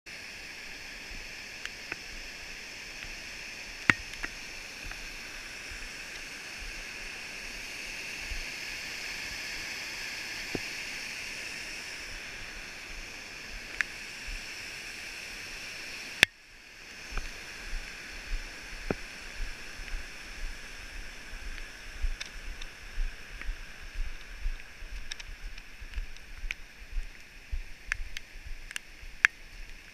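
Mountain creek rushing over rocks in a steady cascade. About halfway through it cuts off suddenly, and the rest is walking footsteps on a gravel trail, about two steps a second.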